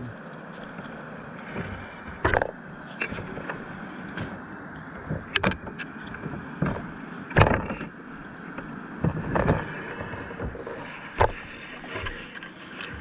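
Kayak paddle strokes splashing about every two seconds over the steady rush of a fast-flowing river.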